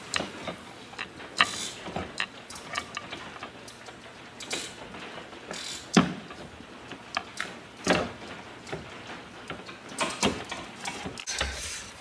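Irregular clicks and knocks of hand tools and dashboard braces and trim being fitted and fastened back under a car's dash, with a louder knock about halfway through.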